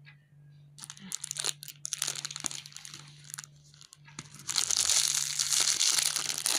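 Thin clear plastic bag crinkling as it is handled in the hand. Scattered crackles begin about a second in and become loud and continuous from about four and a half seconds.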